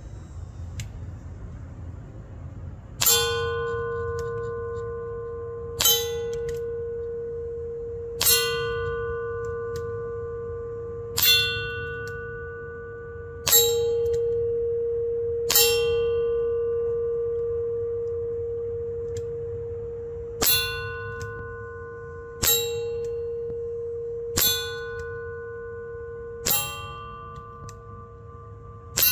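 Barra Schofield CO2 air revolver fired about ten times at a steel target, each shot a sharp crack as the target is struck, leaving it ringing with a long bell-like tone that fades slowly between shots. The shots come two to five seconds apart, with the longest pause about halfway through.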